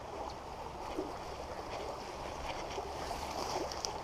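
Creek current running steadily: a continuous rushing wash of moving water.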